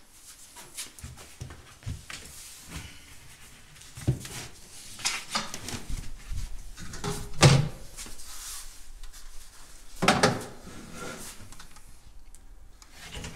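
Irregular knocks and clunks of a wooden kitchen cabinet being worked on and shifted into place, with the loudest knocks about seven and a half and ten seconds in.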